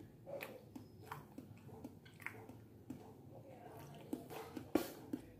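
A man chewing soft banana cake, with irregular wet mouth clicks and smacks and one sharper click near the end.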